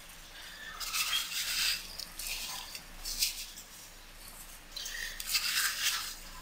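Coarse salt being scattered by hand over sardines in a ceramic baking dish: several short hissing rustles of falling grains. The longest comes near the end, as salt is poured on from a container.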